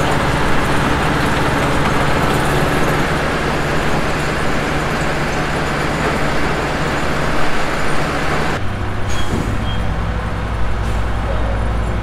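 Diesel-powered almond elevator running: an engine drone under the rushing of almonds moving up the conveyor and pouring into a trailer. About three-quarters of the way through, the rushing stops and a lower engine drone carries on.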